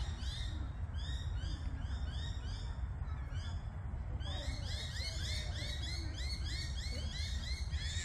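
Small animals calling by a pond: a rapid series of short, high chirps, about four a second, with a second series overlapping from about halfway through, over a steady low rumble.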